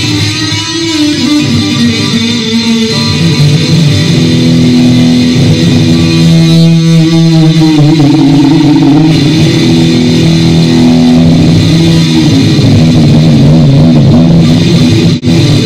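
Rock music with electric guitar and bass, loud and continuous, with a brief break near the end.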